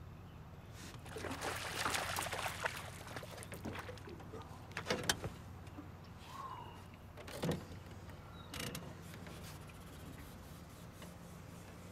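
Handling knocks and clicks in a small fishing boat over a steady low hum: a rustling, clicking run for a couple of seconds, then a few sharp single knocks.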